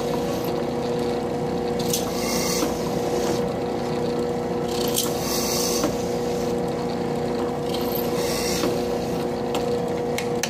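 Drill press running with a steady hum while a number 30 bit drills holes through a carbon fiber plate; a hiss of cutting swells and fades every second or two as each hole is drilled.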